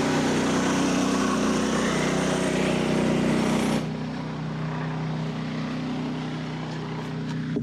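Frontier OS27 portable bandsaw mill's gas engine running steadily under load as the band blade cuts through a large red oak log. A little under four seconds in, the louder cutting noise drops away and the engine carries on at a quieter, steady note.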